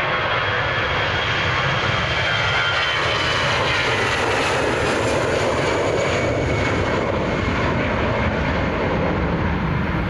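Twin jet engines of an Airbus A320 airliner at takeoff thrust, a loud steady rushing roar with a high whine, as the aircraft lifts off and climbs away. The whine falls slightly in pitch.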